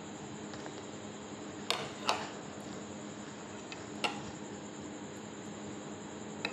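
Light clicks of tableware, a spoon knocking against a plate, over a steady background hum. There is a pair of clicks about two seconds in, another about four seconds in and one at the very end.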